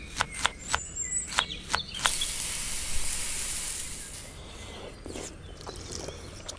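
Chef's knife chopping green onions on a wooden cutting board: about six sharp strikes in the first two seconds. A loud hiss follows for about two seconds and fades.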